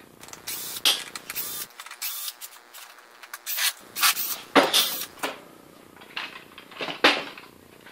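A cordless drill backing screws out of a wooden chair's seat frame, among a run of sharp, irregular clicks and knocks from the chair and tools being handled.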